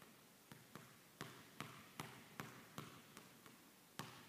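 Basketball dribbled low and steadily on a hardwood gym floor, about two and a half bounces a second, each bounce followed by a short echo off the hall.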